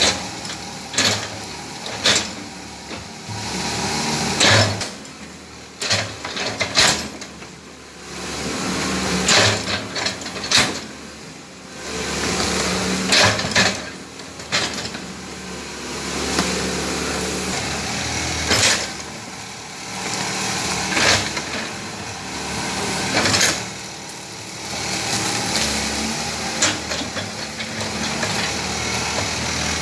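Excavator diesel engine running, its revs swelling and dropping back every few seconds as the hydraulics work, with repeated sharp knocks and clanks.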